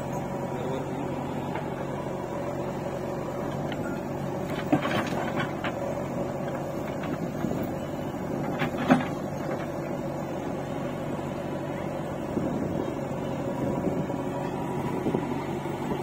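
Diesel engine of a JCB 3DX backhoe loader running steadily as it loads soil into a tractor trailer, with two sharp knocks about five and nine seconds in.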